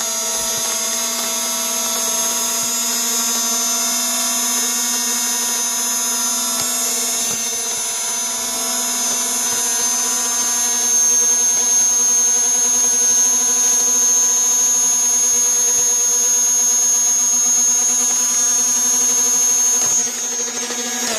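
A small electric motor running steadily with a high whine, then winding down near the end.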